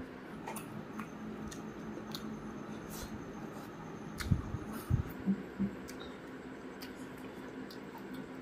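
Close-up sounds of a person eating curry and rice by hand: small wet clicks of chewing and lip smacking, with a few louder low thumps about four to six seconds in.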